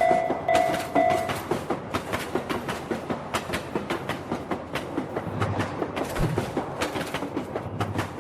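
Railroad crossing warning bell ringing in a steady on-off pattern, about two strokes a second, stopping just over a second in. Throughout, train wheels clickety-clack over the rail joints as a train passes.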